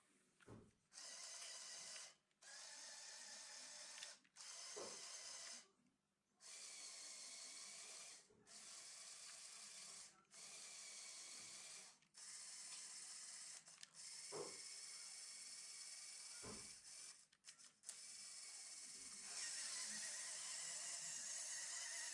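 Small electric motors and plastic gearing of a Lego excavator whirring in short runs of one to two seconds, stopping and starting again about ten times, with a few clicks between runs; the last run, near the end, is a little louder.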